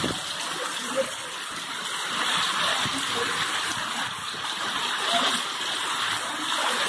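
Heavy rain pouring onto a paved street, a steady hiss with water splashing on the ground and runoff streaming down from the roof edge.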